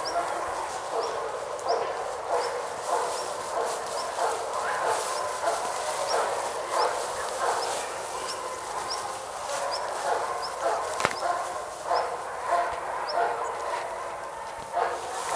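Dogs barking repeatedly in short calls, about one every half second to a second, while chasing each other in play.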